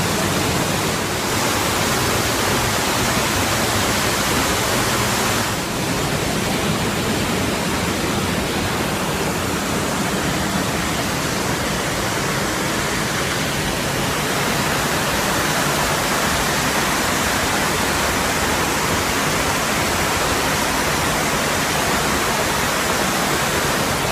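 Loud, steady rush of a waterfall's falling water.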